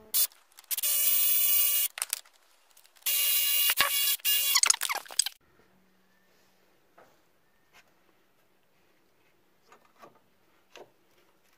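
Power wrench running in two bursts, the first about a second long and the second about two seconds with short breaks, undoing bolts on the gearbox and starter motor. Faint clicks and handling noises follow.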